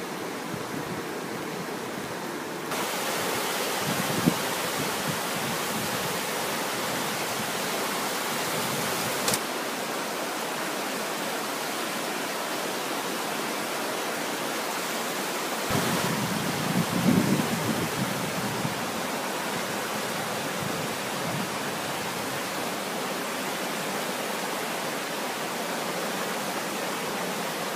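Steady rush of the Cairn, a river in full spate after heavy rain, its floodwater pouring through woodland. The sound changes abruptly a few times where the shots are cut, and a low rumble rises briefly about sixteen seconds in.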